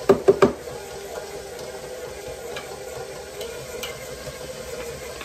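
Electric stand mixer running steadily, mixing flour into creamed butter and sugar for a stiff cookie dough. Three quick knocks at the very start.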